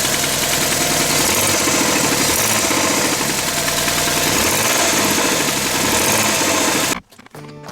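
Suzuki Wagon R's K6A three-cylinder engine running steadily with the abnormal clattering noise that is the fault being chased. It cuts off suddenly near the end.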